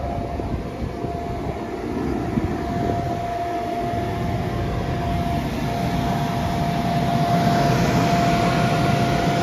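Electric air blower running steadily: a constant drone of moving air with a single steady whine over it, growing a little louder toward the end.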